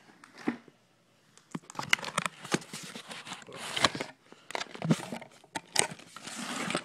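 Close handling noise of red power cable and things beside it being moved about: rustling and crinkling with many sharp clicks and knocks, starting about a second and a half in and thickening into a steady rustle near the end.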